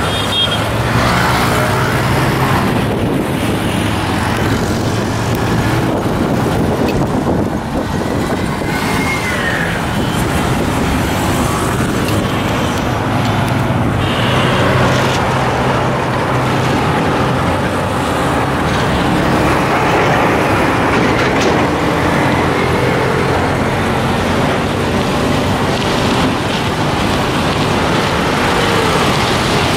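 Loud, steady road traffic: cars and trucks going by, with a low engine hum under the rush of tyre and engine noise.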